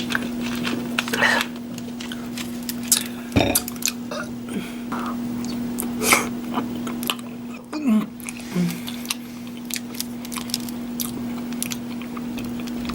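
Close-miked chewing of deviled eggs: wet mouth smacks and scattered clicks, over a steady low hum.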